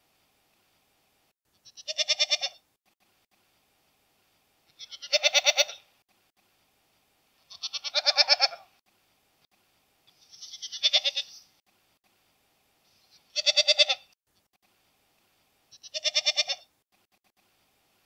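Domestic goat bleating six times, each a wavering call about a second long, spaced a little under three seconds apart.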